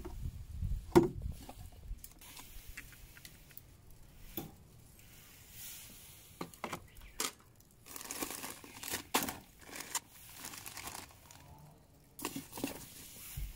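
A Coleman cooler's plastic lid opens with a sharp knock about a second in. Then plastic food bags rustle in several short bursts as items are handled inside the cooler and a zip bag of cut cabbage is lifted out.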